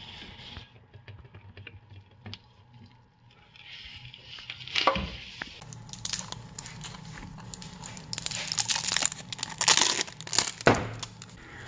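Clear plastic wrapping crinkling and tearing as it is pulled off a new spin-on oil filter, a dense crackle of small clicks and rustles. It starts a few seconds in and is busiest in the second half.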